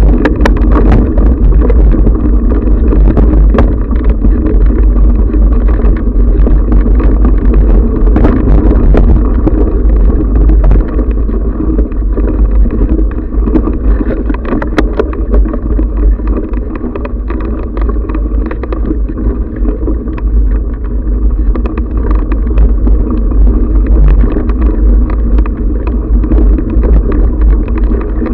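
Riding noise picked up by a camera mounted on a mountain bike on a dirt singletrack: a steady loud rumble of wind and trail vibration, with frequent sharp clicks and knocks as the bike and mount jolt over bumps. It eases off a little partway through, then picks up again.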